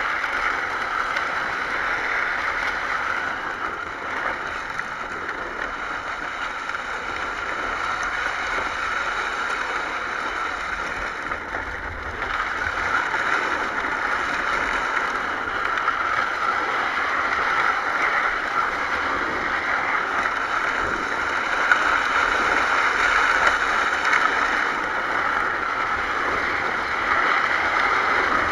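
Steady rolling and scraping of a toy ride-on four-wheeler's hard plastic wheels over asphalt as it is towed along on a strap, with wind rushing past the camera mounted on it. It grows a little louder about halfway through.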